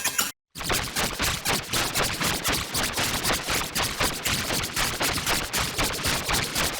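Harsh, heavily distorted noise pulsing rapidly at several beats a second, cut by a brief dropout to silence shortly after the start.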